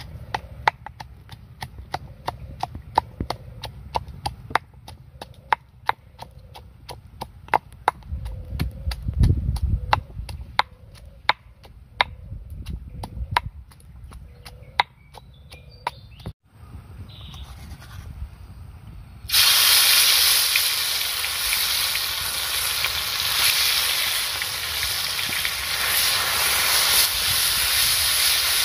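Stone pestle pounding chili and onion in a stone mortar, a sharp knock about two or three times a second. The pounding stops about two-thirds of the way through, and a few seconds later loud, steady sizzling begins as the paste fries in a hot wok.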